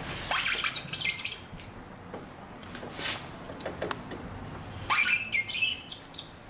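Yamaha RZR 135 center stand rubbing on the tyre, giving high, shrill squeaks in three bursts: the stand squeal the video sets out to cure.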